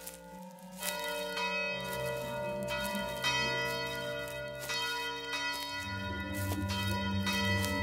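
Large yard bell on a post tolling, struck repeatedly in pairs about two seconds apart, each strike leaving long ringing overtones. A low droning tone sits underneath and grows louder about six seconds in.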